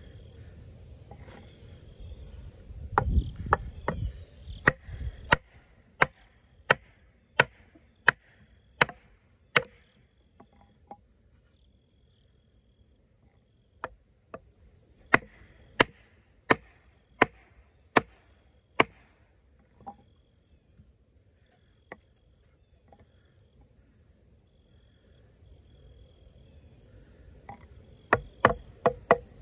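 Extrema Ratio Tuscan knife being batoned through a thick stick: runs of sharp knocks, roughly three every two seconds, with two longer pauses. Crickets chirp steadily throughout.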